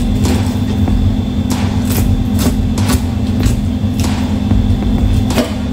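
Kitchen knife working through a whole milkfish on a plastic cutting board: a series of sharp taps and scrapes, about two a second, as the fish is cut along its back. Under them runs a loud, steady low mechanical hum.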